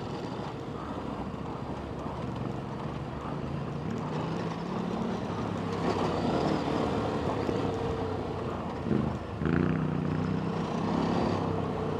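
Ducati motorcycle engine running under way, its pitch rising and falling with the throttle, with a brief drop about nine seconds in before it picks up again.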